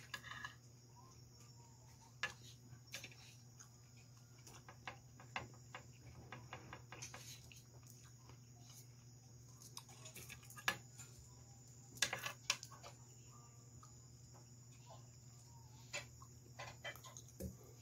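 Quiet eating: a spoon clicking and scraping on a plate of curry and rice, with faint chewing, in scattered short clicks over a steady low hum and high hiss.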